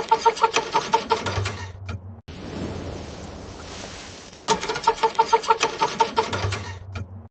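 A cold car engine being cranked by its starter motor in two attempts of about two and a half seconds each. Each attempt has a fast, even beat of about six strokes a second and stops abruptly without the engine catching. A steady hiss fills the gap between the attempts.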